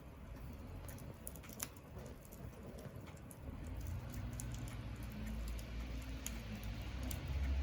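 Wood fire crackling, with scattered sharp pops and ticks at irregular intervals. A low rumble swells in about halfway through and grows louder toward the end.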